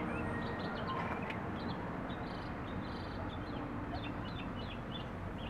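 Small birds chirping in the background: a scattered run of short, high chirps over a steady low rumble.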